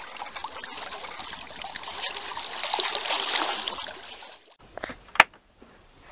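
Rippling water trickling and splashing, cutting off abruptly about four and a half seconds in, followed by a single sharp click.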